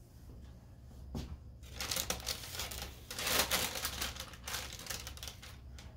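Parchment paper crinkling and rustling as a hand handles the folded sheet on a rosin press, in a stretch of a few seconds.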